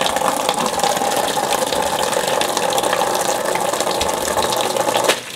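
Tap water pouring from a wall faucet into a plastic basin of shredded potato as the strips are rinsed; a steady gushing flow that cuts off shortly before the end.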